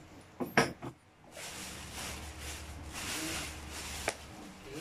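Clear plastic wrapping crinkling and rustling as a stationary bike's main frame is pulled out of it. A couple of sharp knocks come about half a second in, and a single click near the end.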